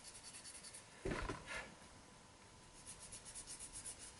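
A small hand file rasping on a plastic model-kit part in quick, light strokes, about eight a second, in two short runs, filing a rough spot flat so the glue will hold. About a second in, a brief louder knock, like the part or the tool being bumped or set down, interrupts the filing.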